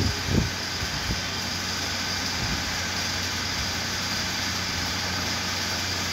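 Steady mechanical hum of running workshop machinery, with a few short knocks in the first second or so.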